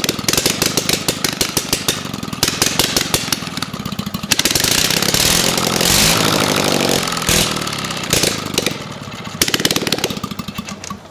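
John Deere Gator twin-cylinder engine running on a workbench with no exhaust fitted. Its speed rises and falls under the throttle, loudest in the middle, and it cuts out at the very end. The engine has a known fuel problem: the carburetor needs adjusting and the intake gasket is leaking.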